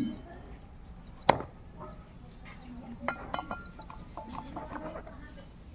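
A single hard chop of a blade into a goat's head about a second in, followed by a few fainter knocks, with small birds chirping.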